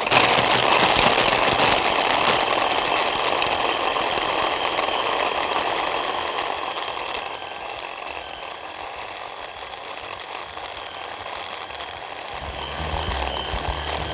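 Electric hand-blender chopper attachment running continuously, its motor whining over the clatter of ice cubes as it grinds lean veal into a smooth paste. It comes on sharply at the start and grows quieter from about six seconds in as the meat turns to paste.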